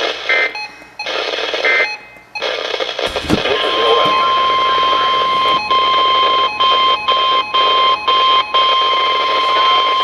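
Weather radio receiving a weak, static-laden NOAA broadcast: choppy bursts of the digital alert-header data, a brief thump about three seconds in, then the steady 1050 Hz warning alarm tone, which starts about three and a half seconds in and holds with several brief dropouts from the poor signal.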